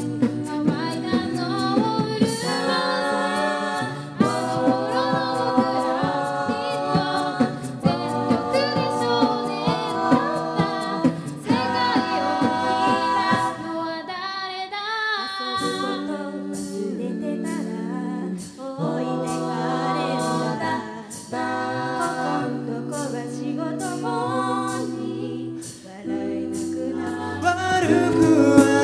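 A cappella vocal group of male and female voices singing in close harmony, with vocal percussion clicking out a steady beat.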